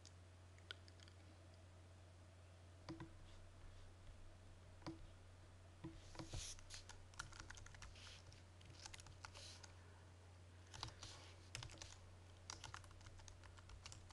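Faint typing on a computer keyboard: a few separate key clicks at first, then a quick run of keystrokes from about six seconds in. A low steady hum lies under it.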